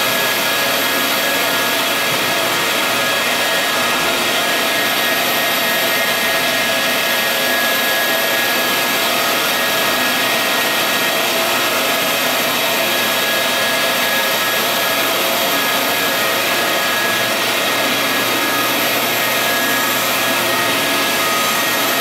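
Vutek UV-curable wide-format printer running as it prints, a steady machine whir and hiss with several constant tones.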